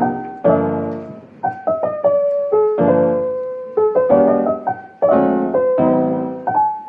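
Background piano music: a slow melody over chords, each struck note ringing and fading.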